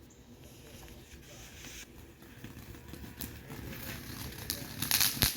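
A ground fountain firework igniting: a hiss that builds, with scattered crackles and a loud cluster of crackling near the end.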